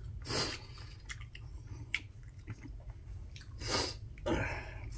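A person chewing a mouthful of food, with small wet mouth clicks and two louder breathy bursts, about half a second in and again near the end.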